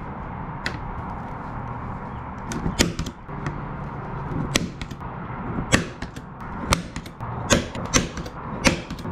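Spring-loaded automatic center punch snapping about ten times at uneven intervals as it marks the drilled-hole centres on a metal wing-strut attachment bracket.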